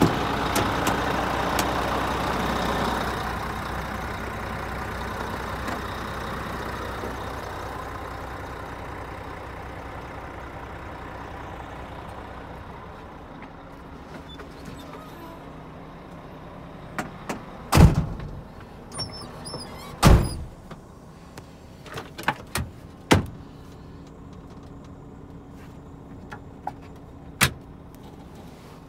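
Scania R450's 13-litre six-cylinder diesel idling steadily, growing fainter over the first several seconds and then heard muffled from inside the cab. Two loud door thumps about 18 and 20 seconds in are followed by a few smaller clicks and knocks.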